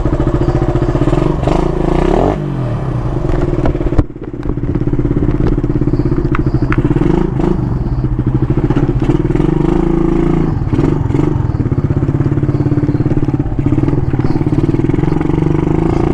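Motorcycle engine running close up, mostly at a steady idle-like pace, with an abrupt break about four seconds in before it carries on.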